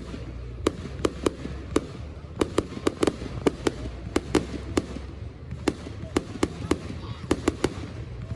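Fireworks display: a rapid, irregular run of sharp bangs and cracks, two or three a second, over a low rumble.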